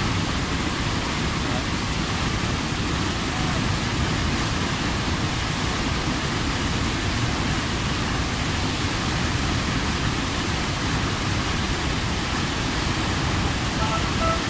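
Rushing white water of the Waikato River at Huka Falls: a loud, steady, unbroken rush of churning rapids.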